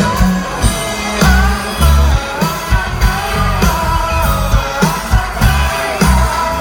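Live rock band playing, with a sung melody over a heavy, steady bass drum beat.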